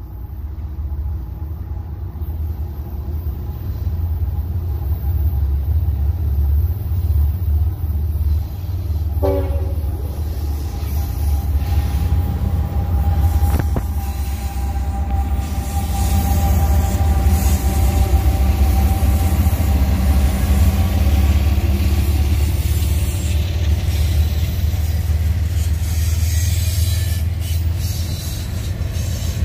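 Union Pacific intermodal freight train going by, its diesel locomotives making a deep, steady rumble. A train horn sounds as a held chord from about ten seconds in, for roughly twelve seconds, while the train grows louder.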